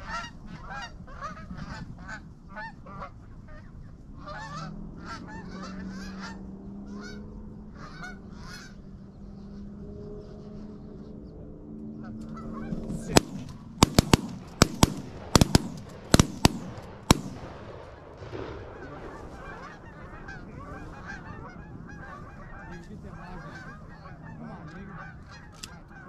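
Canada geese honking, then about halfway through a rapid volley of about ten shotgun shots over some four seconds as the geese flare, followed by more honking from the flock.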